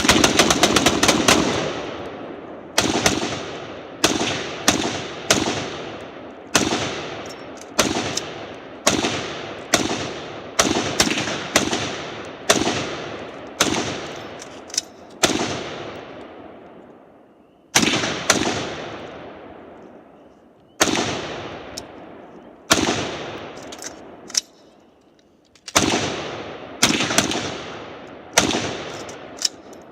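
Sustained gunfire: a fast string of shots at the start, then shots every half second to a second with a few short pauses, each one echoing away.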